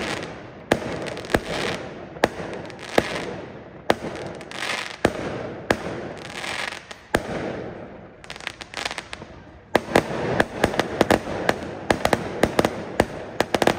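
Aerial fireworks going off: a string of sharp bangs from bursting shells with crackling and hissing between them, the bangs coming thick and fast for the last few seconds.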